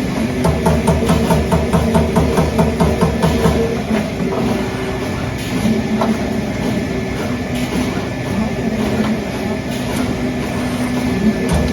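Trumpf Trumatic 2010R CNC turret punch press at work: a quick, even run of punching strokes, about four a second, for the first few seconds, then the machine running more steadily with a steady hum.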